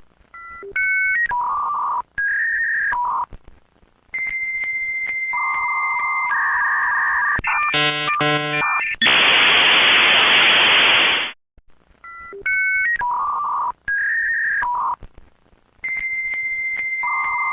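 Dial-up modem connecting: short tones, long steady whistles, a chopped warbling pattern and then about two seconds of loud hiss as the modems negotiate the handshake, after which the sequence starts over.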